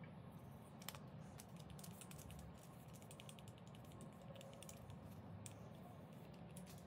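Faint, quick clicks and light taps of handling as an angle grinder's armature is fitted into a plastic pipe, with a low background hum.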